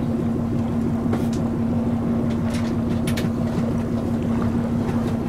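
Electric-powered Königssee passenger boat under way: a steady hum from the drive with a constant low rumble of water along the hull.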